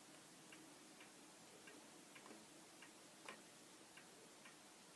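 Near silence with faint, regular ticking, about two ticks a second.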